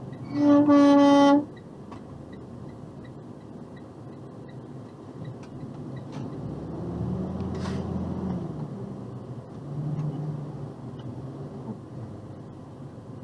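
Truck air horn sounding one steady blast of about a second near the start. It is followed by the box truck's steady engine and road rumble.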